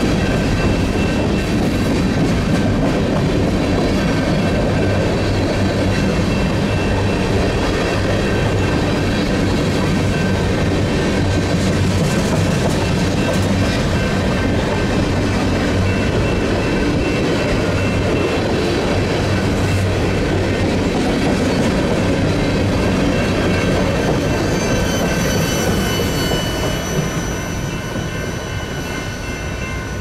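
Covered hopper cars of a freight grain train rolling past: a steady rumble of steel wheels on rail with several high steady tones above it. The sound fades over the last few seconds as the end of the train moves away.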